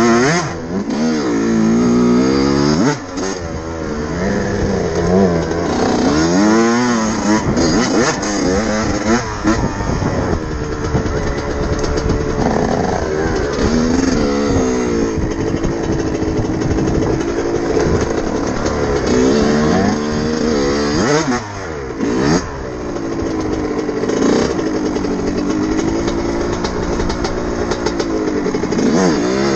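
2000 Yamaha YZ125 two-stroke single-cylinder engine heard from on the bike during a trail ride, rising and falling in pitch over and over as the throttle is opened and closed. It revs cleanly, on a bike the rider calls jetted perfectly.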